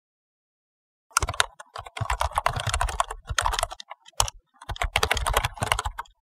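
Rapid computer-keyboard typing, keys clattering in quick succession. It starts about a second in and comes in two runs with a short pause and a lone keystroke between them.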